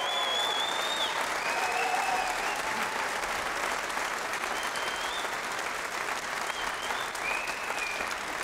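Crowd applauding and cheering, with a few high whistles over the clapping.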